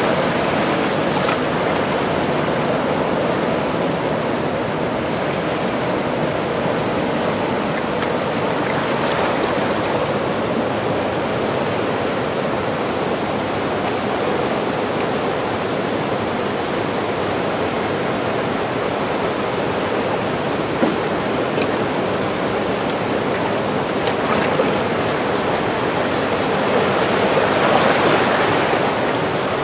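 Turbulent white water of the Zambezi churning in the Boiling Pot whirlpool below Victoria Falls: a loud, steady rushing noise, swelling slightly near the end.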